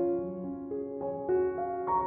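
Gentle background piano music: a slow melody of single notes, a new one every few tenths of a second.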